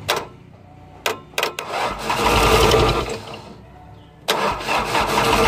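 Road roller's diesel engine being cranked by its starter motor, jumped directly at the starter because the ignition key switch is faulty. A few sharp clicks come first, then two bursts of cranking, the second starting about four seconds in, without the engine catching.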